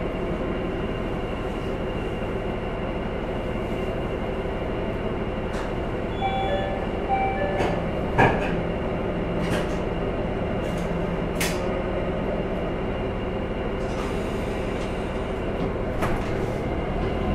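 Diesel engine of a KiHa 11 railcar idling, heard from inside the passenger cabin while the train stands at a station: a steady rumble. A few sharp knocks and clicks sound through it, the loudest about eight seconds in, with faint short beeps just before that.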